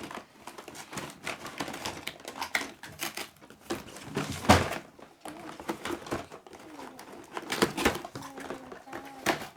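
Cardboard toy box and its packaging being handled and opened: irregular rustling, scraping and clicks, with the loudest knock about four and a half seconds in and two more near the end.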